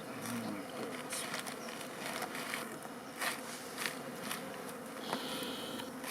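Honeybees buzzing around their hive in a steady, low hum. Scattered brief clicks and rustles sound over it, the sharpest about three and four seconds in.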